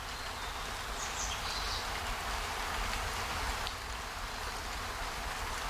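Steady outdoor nature ambience: an even hiss with a low rumble beneath it and a few faint, short high chirps.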